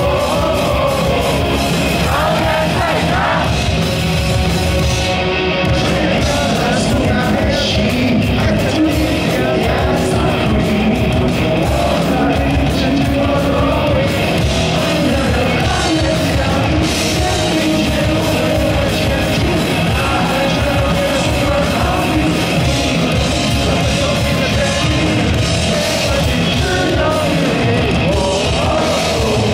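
Live punk rock band playing loudly through a stadium sound system: a male vocalist sings into a microphone over electric guitars and drums.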